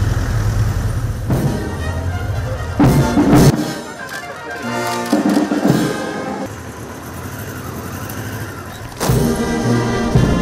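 Brass band music, with a few loud hits along the way.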